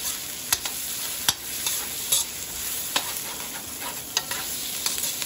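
Ginger, shallots, garlic and chilies sizzling as they sauté in hot rendered chicken fat in a wok. A metal spoon stirring them clinks and scrapes against the pan every second or so.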